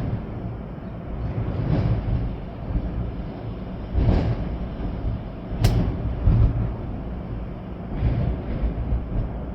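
Storm wind blowing hard in gusts, with rain, rumbling on the microphone. It swells several times, and there is one sharp click a little past halfway.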